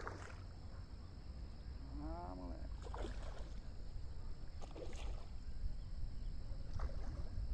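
A hooked fish splashing at the pond surface a few times while it fights the line, over a steady low wind rumble on the microphone.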